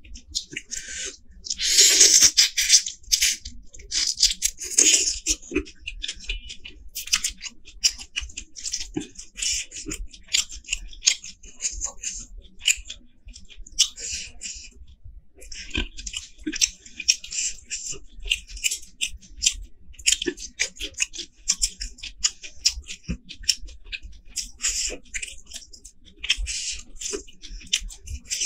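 Close-up eating sounds: fingers mixing rice with curry on a metal plate, and chewing, as many short clicks, loudest about two seconds in.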